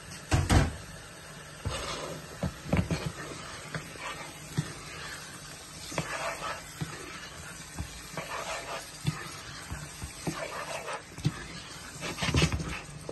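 Irregular knocks and clatter of a cooking utensil against a pan, over a steady low hum, with the loudest knocks near the start and near the end.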